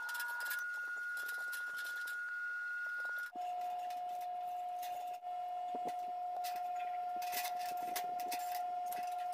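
Background music of long held, pure-sounding notes; the note drops to a lower pitch a little over three seconds in. Faint irregular clicks of thin wire and fingers handling sheet metal sit underneath.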